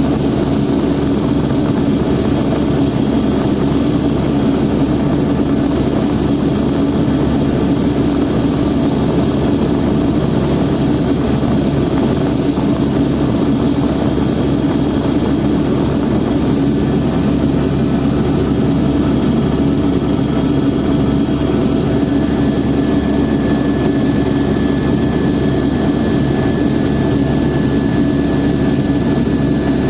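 Helicopter engine and rotor noise, loud and steady, with a constant low hum and a thin high whine; a second, lower whine joins about two-thirds of the way through.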